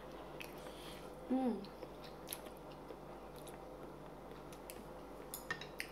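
Mouth noises of someone eating a mouthful of noodle soup: chewing with wet mouth clicks, a cluster of them near the end. About a second and a half in there is a short hummed "mm" that falls in pitch.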